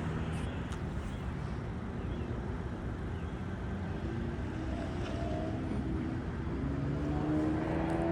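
NJ Transit commuter train's diesel locomotive running steadily while the train stands at the platform. Its engine pitch rises near the end as it starts to pull away.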